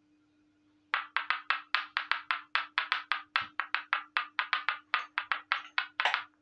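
Quick, light knocks of a small clay miniature pot being tapped, about two dozen of them at roughly five a second, starting about a second in.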